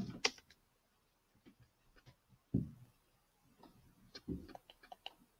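Computer mouse clicking at the start, then a single low thump about two and a half seconds in and a scatter of faint small clicks near the end.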